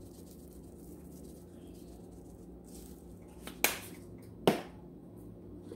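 Two sharp clicks less than a second apart from handling a plastic seasoning shaker, over a faint steady hum.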